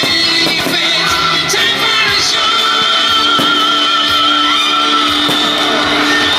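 Music with a singer holding long notes with vibrato. A few short sharp cracks sound over it.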